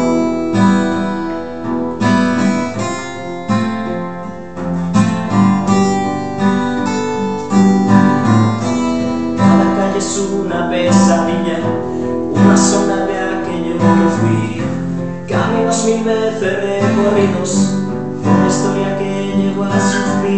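Two acoustic guitars playing an instrumental passage of a ballad, with repeated strummed chords.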